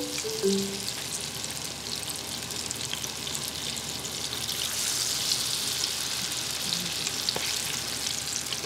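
Corn kakiage (corn kernels in tempura batter) deep-frying in oil at about 160 °C: a steady sizzle with many small crackles.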